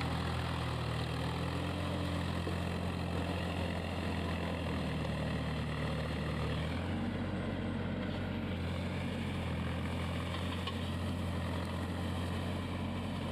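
Indo Farm 3048 tractor's diesel engine running steadily under load while it drives a rotavator through wet paddy mud; its drone shifts slightly about seven seconds in.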